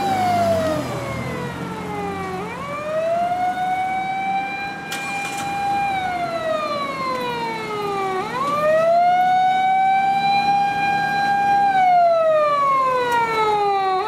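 Fire engine siren wailing in repeated cycles: the tone climbs quickly, holds high for about two seconds, then slides slowly down, about every six seconds. The truck's engine runs underneath.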